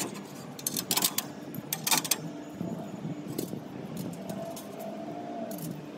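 Metal clinks and knocks from steel bolts, washers and the steel bike-rack mast being handled and fitted onto the pivot, with several sharp clinks in the first two seconds and quieter ticks after.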